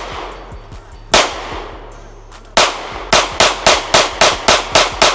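Smith & Wesson CSX E 9mm micro pistol firing: three shots spaced about a second and a half apart, then a rapid string of about eight shots at roughly four a second, each shot with a ringing echo.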